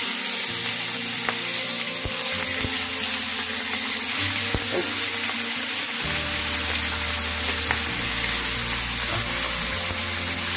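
Thin beef slices frying in hot oil in a nonstick pan, sizzling loudly and steadily, with a few faint clicks.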